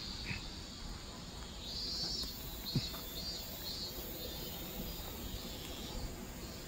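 Insects chirping in short repeated pulses over a low outdoor rumble, with a single knock about three seconds in.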